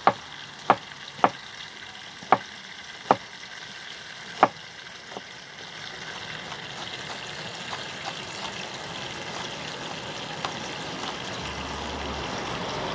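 Knife chopping garlic cloves on a plastic cutting board: six sharp knocks in the first four and a half seconds, then quieter light cutting. A steady background hiss grows louder toward the end.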